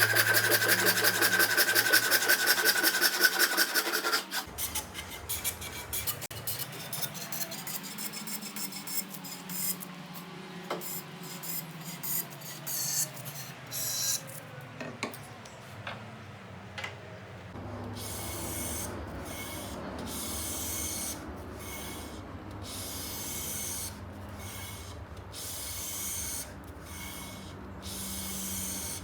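Hand tool working a wooden part in repeated scraping strokes, such as a rasp, file or sandpaper. The strokes are fast and even for the first four seconds, then slower and irregular, and in the second half they come about once a second with short pauses between.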